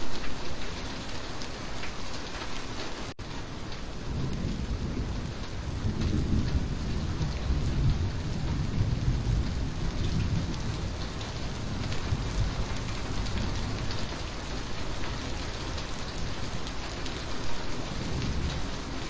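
Steady rain with low rolling thunder that swells about a quarter of the way in and slowly dies away. A momentary dropout about three seconds in.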